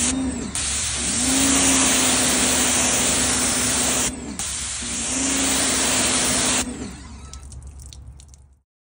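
Pressure washer spraying in two long bursts, its pump motor humming up to speed as each burst starts; the spray stops about two-thirds of the way in and dies away with a few small clicks.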